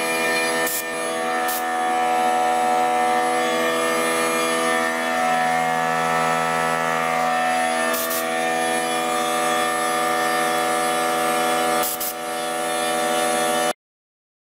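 CNC router spindle running with a steady, many-toned whine while the bit mills a relief carving into wood. A few short clicks break in, and the sound cuts off abruptly near the end.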